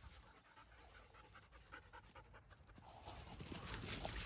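German Shepherd dog panting quickly and rhythmically, close by. A louder rush of noise comes in during the last second or so.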